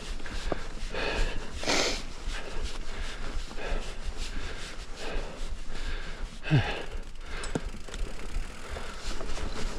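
A mountain biker breathing hard while pedalling uphill: repeated heavy, noisy exhales every second or two, over a steady low rumble of wind on the microphone.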